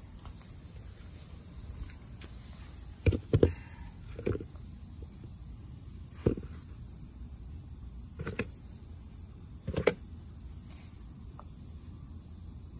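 Ripe tomatoes set down one by one into a plastic bucket lined with a paper towel: about six dull thumps a second or two apart, over a steady high hiss.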